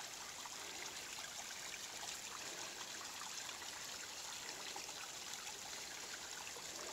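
Water trickling over a wet rock face: a steady, even hiss of running water.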